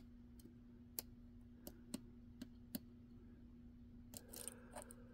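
Faint, separate metallic clicks of a lock pick working the pins of a stainless steel 5-pin pin-in-pin padlock under tension, a handful of sharp ticks spread across a few seconds, over a faint steady hum.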